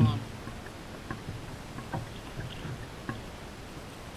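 Canoe paddling, with the paddle knocking against the canoe's hull: one sharp knock at the start, then lighter knocks every half-second to second as the strokes go on.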